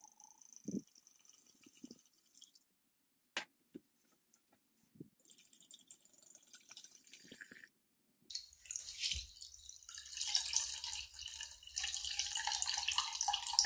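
Mead trickling through a cloth straining bag into a plastic pitcher: faint at first, with a few soft knocks, then from about eight seconds in a louder, steadier trickle as the filled bag drains into the pitcher.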